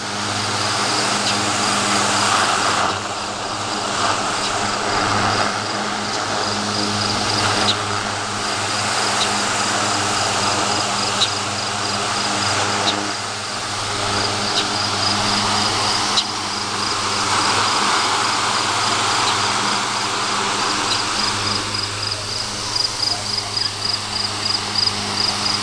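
Vintage Emerson 75048 DC desk fan with steel blades running steadily, run on AC through an added bridge rectifier. Its motor gives a steady hum under the rush of air off the blades. Crickets chirp in a fast pulsing rhythm in the background.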